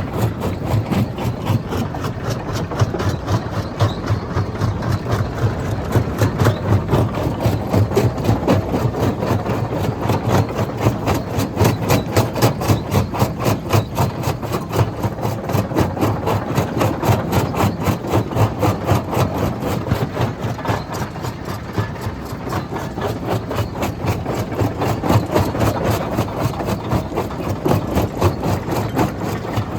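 A rock crusher machine running steadily, with a low engine-like drone and a fast, even pulsing beat throughout.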